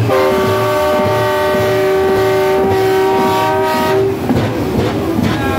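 A truck's multi-note air horn sounds one long chord for about four seconds, then cuts off, over a thumping music beat.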